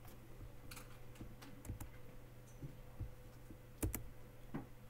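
Scattered clicks of computer keys, about six spread unevenly, the loudest nearly four seconds in, over a faint steady hum.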